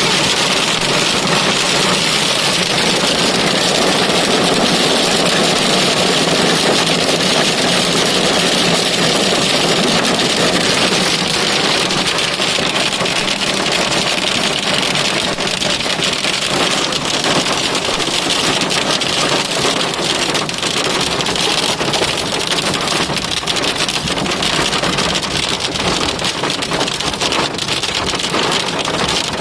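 Heavy hail pelting a car in a steady, dense patter of impacts, with individual sharp stone strikes standing out more clearly in the second half.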